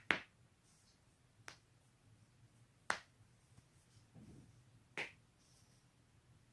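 Knee joints cracking: four sharp single pops, the loudest right at the start, then about one and a half, three and five seconds in.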